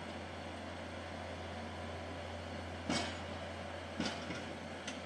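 Diesel track maintenance motor car, Tobu Railway's 2509 hauling herbicide sprayer car HT706, running slowly along the track with a steady low drone. Sharp clacks of steel wheels over the rail come about three seconds in, again a second later, and once more near the end.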